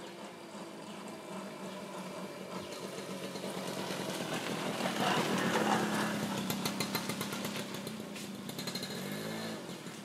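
Engine of a passing motor vehicle, growing louder to a peak about five to six seconds in and then fading, with a brief change of pitch near the end.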